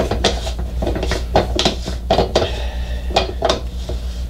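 Irregular metal clinks and scrapes as the bearing carrier retainer ring of a Mercury Optimax lower unit is spun by hand along its threads, after catching a good thread, over a steady low hum.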